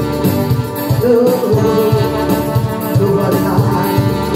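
Live gospel worship music: a woman singing a wavering melody into a microphone over a band with a steady drum beat.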